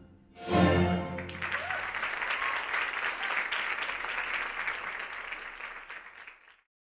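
A last orchestral chord of recorded music sounds briefly about half a second in, then an audience applauds, the clapping fading away and stopping just before the end.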